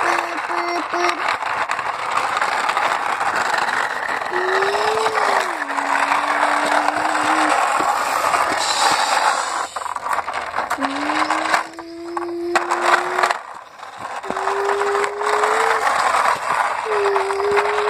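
Hard plastic wheels of a toy bus rolling and rattling as it is pushed along rough concrete. A voice hums long, bus-engine-like tones over it, about five times, some gliding up or down.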